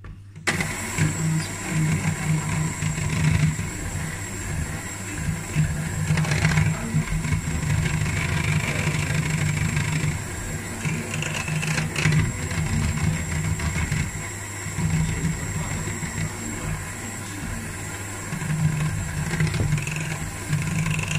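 Electric hand mixer switched on about half a second in and running steadily, its beaters whisking flour into cheesecake batter in a steel mixing bowl.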